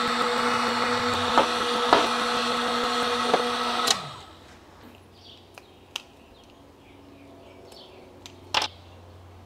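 Electric heat gun running with a steady hum and rushing fan. It shuts off about four seconds in, its pitch falling away. A few light clicks follow, and there is a short louder noise near the end.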